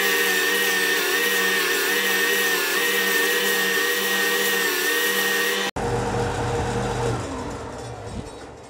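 Parkside PBTS 370 B2 belt and disc sander running with a wooden batten pressed against its sanding disc: a steady motor whine under a high grinding hiss. About six seconds in the sound breaks off for an instant, then the sander runs on more weakly and fades away near the end.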